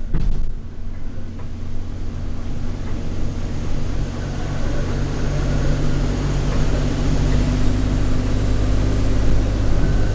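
Alexander Dennis Enviro200 single-deck bus heard from on board: the engine and drivetrain dip in level right at the start, then settle into a steady low drone under way.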